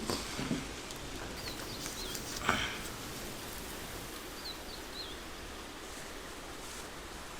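Faint, high bird chirps in two short groups over a steady background hiss, with a single knock about two and a half seconds in.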